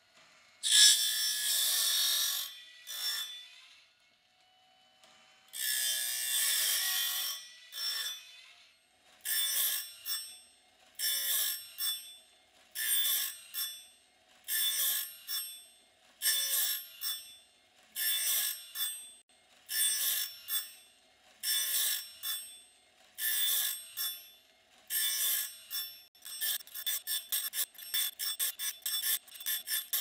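Woodland Mills RS30 Pro sawmill blade sharpener grinding a bandsaw blade tooth by tooth: its grinding wheel meets each steel tooth in a ringing, metallic grind about every two seconds, with a faint motor hum between strokes. Near the end the grinds come much faster, several a second.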